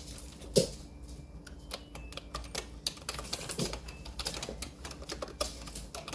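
Typing on an Actto retro typewriter-style wireless keyboard with round keycaps: a steady run of uneven key clicks, several a second, with a few heavier key strokes about every three seconds.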